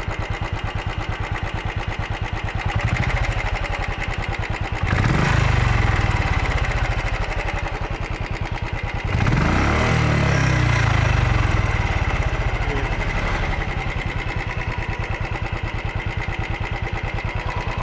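Royal Enfield Classic 350's single-cylinder engine idling with an even beat, revved twice in the middle, the note rising then falling back to idle each time. The owner calls the engine's sound bad.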